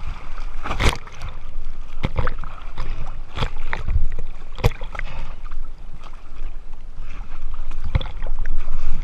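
Sea water sloshing and slapping against an inflatable boat's side tube at the waterline, with irregular splashes about a second or more apart, over a steady low rumble.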